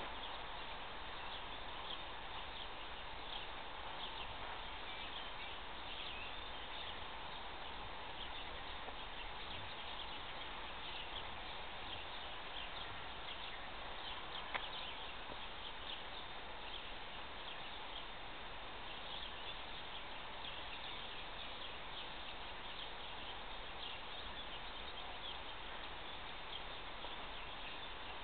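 Steady outdoor background noise with many faint quick ticks or chirps scattered through it, and a single sharper click about halfway through.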